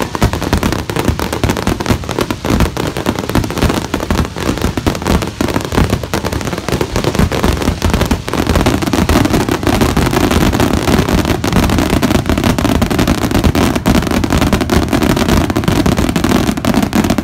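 Aerial fireworks display: many shell bursts going off in rapid, overlapping succession with crackling. The bangs come too close together to count and merge into a near-continuous barrage that grows denser about halfway through.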